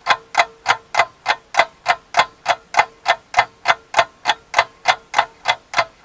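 Even, regular mechanical ticking, about three ticks a second, over a faint steady hum.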